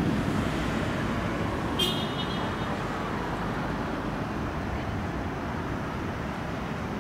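Steady road traffic noise, slowly fading, with a brief high-pitched squeak about two seconds in.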